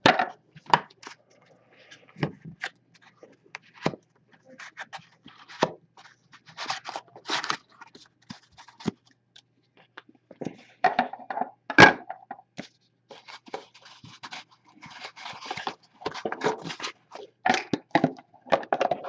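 Hockey trading cards being handled and squared into a stack, with scattered clicks, brief scrapes and taps against a metal card tin, and one louder knock about twelve seconds in.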